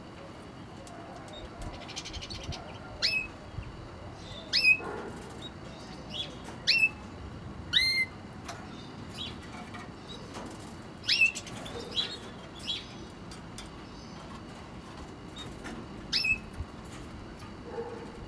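European goldfinches calling with short, sharp call notes that sweep steeply upward, about ten at irregular intervals, a few much louder than the rest.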